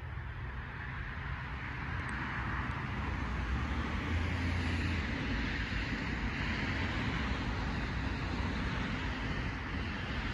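Steady outdoor road traffic noise, rising over the first few seconds and then holding level.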